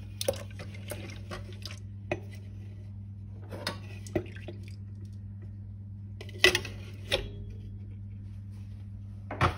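Cream poured into a stainless steel mixer bowl, with scattered clinks and knocks of the jug against the metal bowl. The loudest knocks come about six and a half seconds in and near the end, over a steady low hum.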